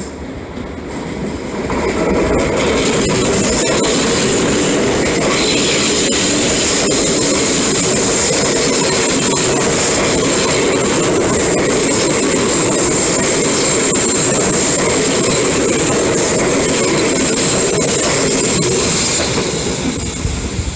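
Tokyu stainless-steel electric commuter train running past: wheels rumbling on the rails with a steady high-pitched wheel squeal. It builds over the first couple of seconds, holds, and fades about a second before the end.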